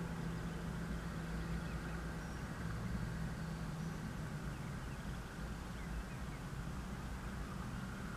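Steady low engine drone over a low rumble, with a hum that fades out about halfway through.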